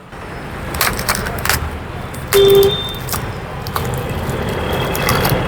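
Handling of a sound-cork package: scattered clicks, taps and rustles over a steady low background noise, with one short tone about two and a half seconds in.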